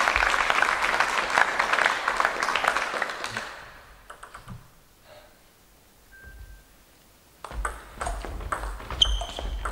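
Spectators applauding, the clapping dying away after about three seconds; then a short hush with a few light taps. From about seven and a half seconds in, a table tennis rally: the ball clicking sharply off the bats and table, with dull thuds of the players' footwork on the floor.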